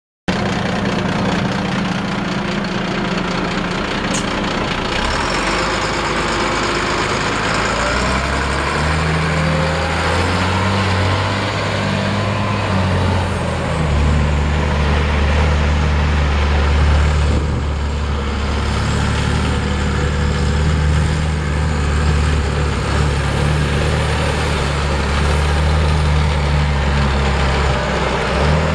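Volvo A25C articulated haul truck's six-cylinder turbo diesel running steadily as the truck is driven. The engine note shifts in pitch about 8 seconds in and again about 14 seconds in.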